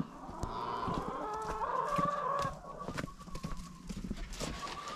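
Domestic chickens calling. One long, drawn-out call lasts for about the first two and a half seconds, then it goes quieter with a few faint clicks.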